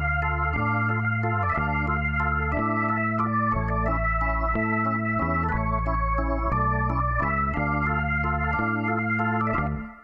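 Background music of held chords over a bass line that changes every second or so, fading out near the end.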